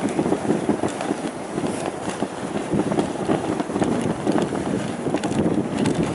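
Dog sled running over a snowy trail behind its team of sled dogs: the runners scraping steadily on the snow, mixed with many quick, irregular crunches of the dogs' feet and the sled.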